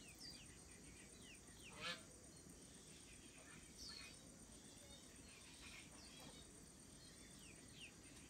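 Faint birdsong: scattered high chirps that fall in pitch, with one short, louder call about two seconds in.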